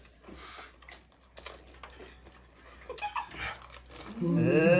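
Soft clicks and crunches of people eating pani puri, then near the end one long drawn-out vocal sound that rises and falls in pitch.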